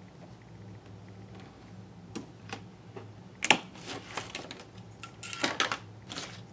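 Light taps and clicks of small tools handled on a desk, a pen set down and a pair of scissors picked up. The taps come irregularly, the sharpest about halfway through and a short cluster near the end, over a steady low hum.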